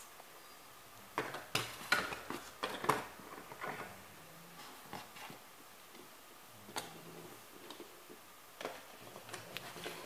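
Small plastic toys being handled and set down on a hard table: scattered light clicks and knocks, a cluster in the first few seconds and a few more later on.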